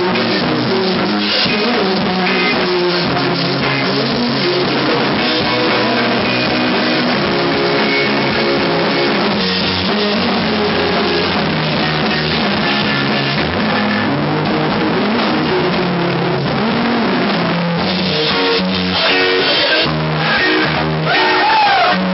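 Live rock band playing loud and continuously: electric guitars, bass and a drum kit through amplifiers, in a poor, harsh-sounding recording.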